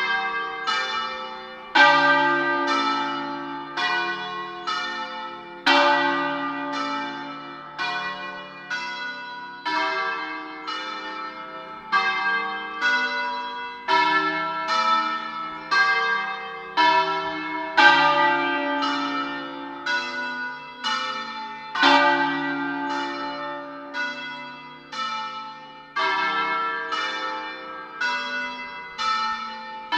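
Church tower bells ringing a peal, struck one after another about twice a second. Each strike rings on under the next, and the sequence comes round again about every four seconds.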